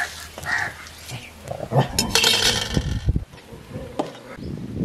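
A metal spatula scraping and clinking against a kadai (wok) as fried pieces of raw jackfruit and potato are lifted out, with a cluster of sharp clinks and scrapes in the middle and a few more clinks near the end.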